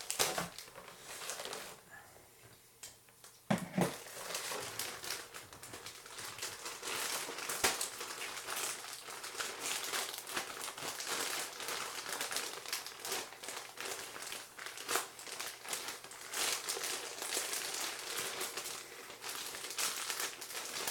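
Package being cut open with a pocket knife and its packaging handled: continuous crinkling and scratching rustles, with a short lull about two seconds in.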